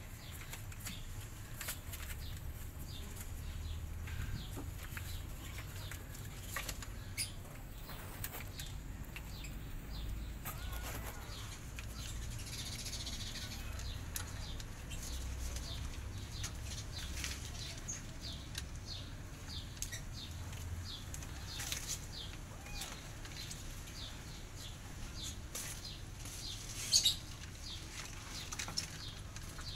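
Kittens scrabbling and tumbling on a plastic sheet: light rustling and scratching with many small sharp ticks over a low steady rumble, and one louder click near the end.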